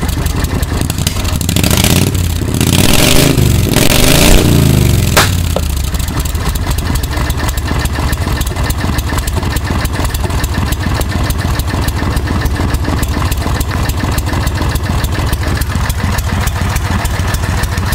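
Briggs & Stratton V-twin engine in a 1992 Club Car golf cart running, with its speed rising and falling a few times, then settling to a steady idle. A sharp click comes about five seconds in. It is running again after the cart sat unused for six months.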